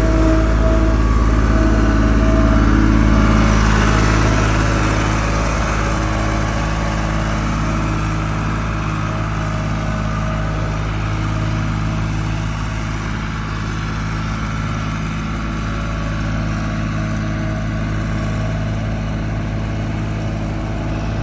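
John Deere 240 skid steer's diesel engine running steadily. It is a little louder for the first four seconds or so, then settles slightly lower and stays even.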